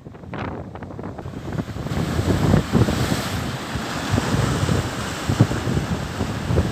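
Sea surf breaking and washing in, with strong wind buffeting the microphone; the rush of the water swells about two seconds in and stays loud.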